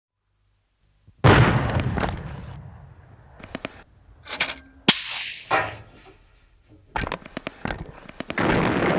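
Sound-designed action-film combat effects. After a second of silence comes a heavy blast-like hit with a long rumbling tail, then scattered sharp gunshot-like cracks, one followed by a falling whoosh. Another hit comes near the end, then a dense, steady din.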